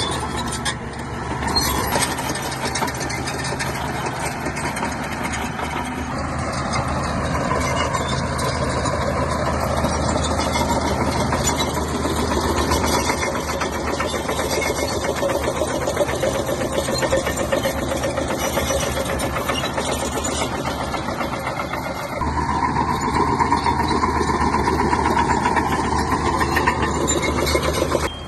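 SHANTUI bulldozer's diesel engine running under load with a dense metallic clatter. The engine note shifts about two seconds in and again about six seconds before the end.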